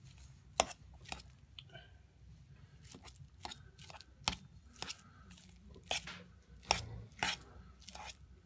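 A metal fork mashing and stirring a canned meat dog-food loaf in a stainless steel bowl: irregular clinks and scrapes of the tines against the bowl, about one or two a second, with the soft crunch of the food being broken up.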